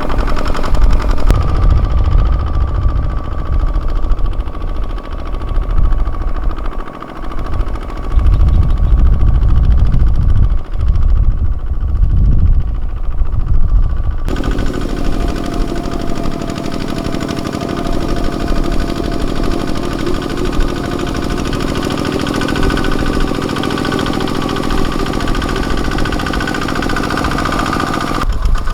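Kubota ZT155 single-cylinder diesel engine of a mini tractor running while ploughing. The first half is a heavy, uneven low rumble; about halfway through it changes abruptly to a steadier, even engine hum.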